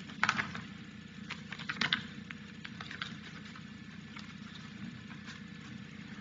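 Bible pages being turned and rustling at a pulpit microphone: a few short, faint rustles and clicks, the clearest near the start and about two seconds in, over a steady low hum of room tone.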